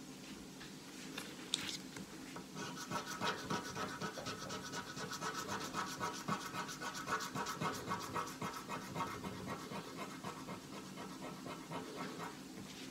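Rapid back-and-forth scratching on a $5 Set for Life lottery scratch-off ticket lying on a glass tabletop, as the coating is rubbed off the play area. The strokes come several per second, starting about two and a half seconds in and stopping near the end. A single sharp tap comes just before them.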